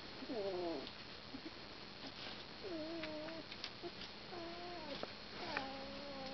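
Young puppy whining: four separate cries, the first falling in pitch and the last the longest, starting about five and a half seconds in.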